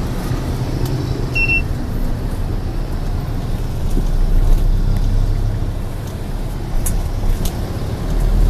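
Road traffic heard from inside a moving vehicle: a steady low rumble of the vehicle and of motor scooters riding alongside. A short high beep sounds about a second and a half in.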